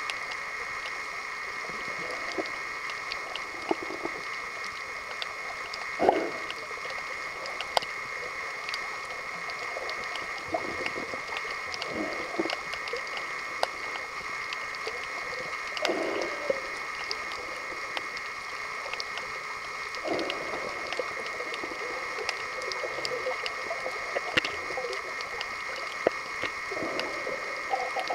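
Underwater ambience picked up by a submerged camera: a steady hum with many faint scattered clicks, and a muffled whooshing surge every few seconds.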